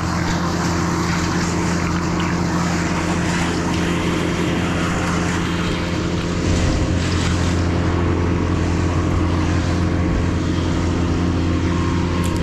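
Crane's diesel engine running steadily, a low hum that grows louder about halfway through.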